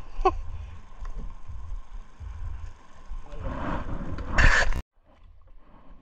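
Wet fishing net being hauled by hand over a wooden boat's gunwale, the mesh rustling and dragging with water splashing off it. A louder rush of net and water builds about three and a half seconds in and cuts off abruptly.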